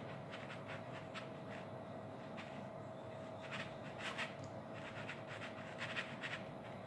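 Hands pressing and smoothing soft cookie dough flat on a baking sheet: light, irregular rubbing and scuffing strokes. A faint steady hum runs underneath.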